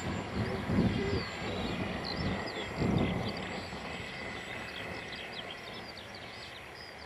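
Gusty wind buffeting the microphone in low rumbling surges, strongest twice, about a second in and again about three seconds in. Under it, many birds keep up a steady run of short, quick chirps.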